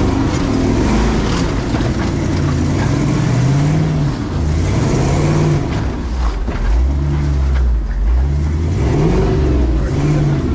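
Off-road rock crawler's engine revving up and down in repeated surges as it tries to climb a slick, muddy ledge without getting up it.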